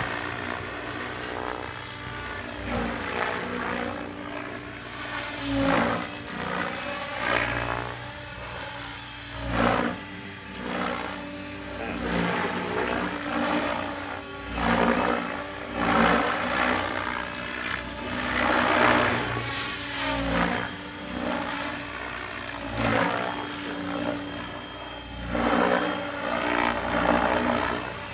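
Logo 690 radio-controlled electric helicopter flying on VTX 697 main rotor blades. The rotor and motor sound swells and fades and sweeps up and down in pitch again and again as it swoops past and manoeuvres.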